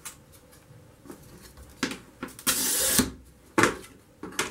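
Glass cutter scoring a sheet of glass: a short scratching hiss of about half a second, with clicks and light knocks of glass and tools being handled before and after.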